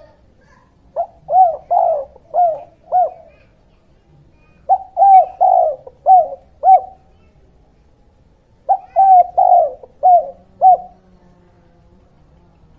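Spotted dove (tekukur) cooing: three phrases of about five coos each, a couple of seconds apart.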